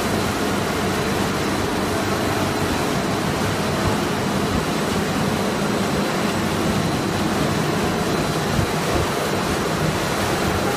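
Snack pellet extrusion line machinery running: a steady, even rushing noise from the motors, conveyors and fans, with a faint high steady whine.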